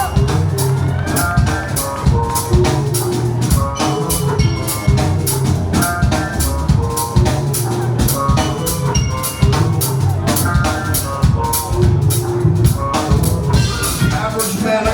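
Live band playing an instrumental break: a drum kit keeps a busy beat with kick and snare under a steady bass line, with short higher pitched notes on top and no singing.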